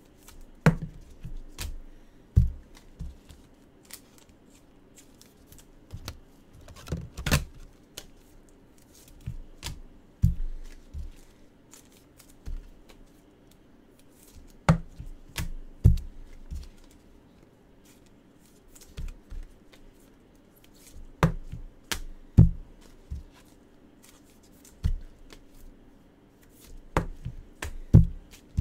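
Gloved hands handling trading cards and rigid clear plastic toploaders on a tabletop: small clusters of sharp clicks, taps and low thumps every few seconds, with quieter stretches between.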